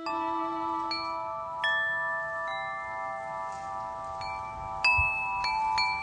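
A string of bell-like chime notes, struck one after another at uneven moments, each ringing on and overlapping the others, with a brief low thud about five seconds in.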